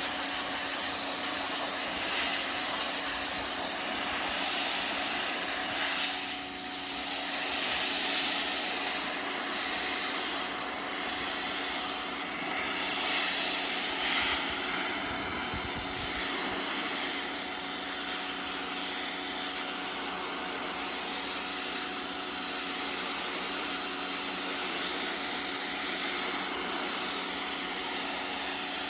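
Pressure washer running steadily, its motor humming under the loud hiss of the spray jet. The spray's sound shifts several times as the jet is swept across a wall, most noticeably between about 6 and 16 seconds in.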